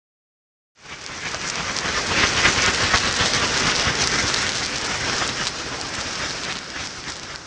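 Hand-held pyrotechnic flares burning with a dense crackling hiss. It starts abruptly about a second in, is loudest a couple of seconds later, then slowly fades.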